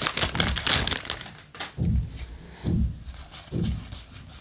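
Foil Yu-Gi-Oh! booster-pack wrapper crinkling as it is handled and pulled off the cards, then three soft low thumps, about a second apart, as the cards are handled.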